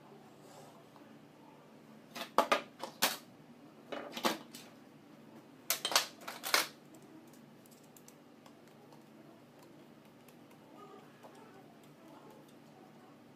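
Sharp metal clicks and clinks from tools and small parts being handled on a 24-volt alternator's exposed rectifier and brush-holder end. They come in three quick clusters during the first seven seconds, then only a faint low hum remains.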